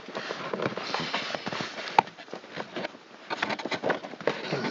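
A dashboard trim piece being handled and worked up into place under the instrument panel: rustling, scraping and irregular clicks, with one sharp click about two seconds in.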